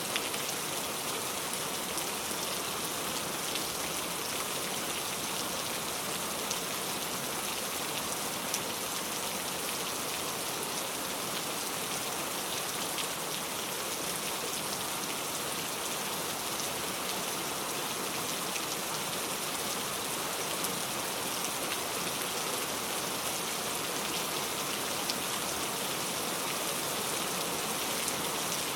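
Heavy rain falling steadily in a forest, a constant hiss of rain with scattered individual drops ticking.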